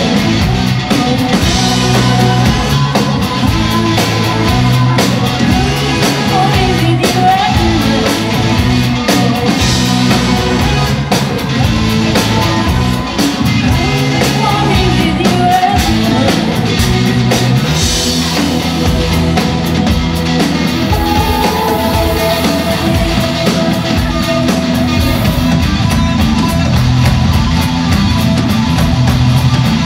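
Live rock band playing with electric guitars, bass, drums and keyboard, with voices singing.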